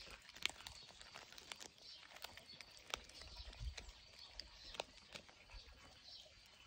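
A cat chewing a raw fish head, making faint, irregular crunching clicks.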